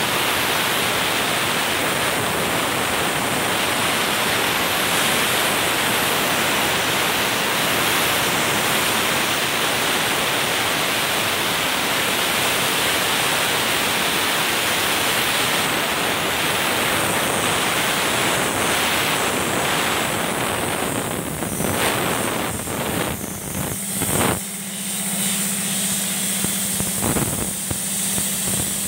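Portable sandblaster blasting abrasive through its hand nozzle onto a metal part: a loud, steady hiss of compressed air and grit. After about twenty seconds the hiss cuts in and out, and a steady low hum comes in near the end.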